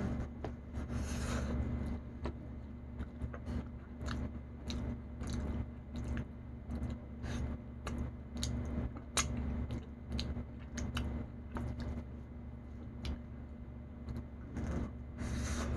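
A person chewing mouthfuls of food close to the microphone: a run of short, wet mouth clicks and smacks at an uneven pace. Two longer hisses come about a second in and near the end, over a steady low hum.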